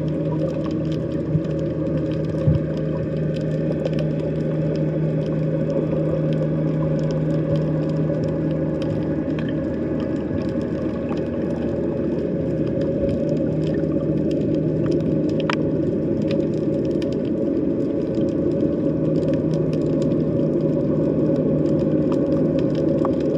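Underwater sea ambience: a steady low drone with a humming tone that fades out around the middle and returns near the end, with scattered faint clicks throughout.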